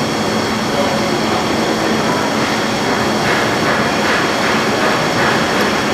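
CNC lathe running with its spindle turning at 1500 RPM: a steady machine noise with a few fixed high whining tones. A rougher, ragged noise joins in from about three seconds in.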